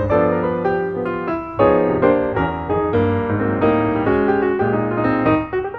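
Background music led by piano: a run of melodic notes over held bass chords.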